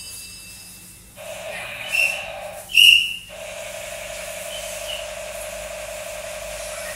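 Kitchen tap running into a sink with a steady hiss and a faint whistle. The flow starts about a second in, stops briefly near 3 s and comes back on. Two short sharp clinks sound around the break.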